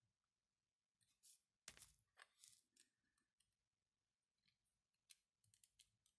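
Faint clicks and scrapes of 3D-printed plastic counter parts being handled and fitted together. A few sharper snips and clicks come a little over a second in, as flush cutters trim a part, and a run of small plastic clicks comes near the end.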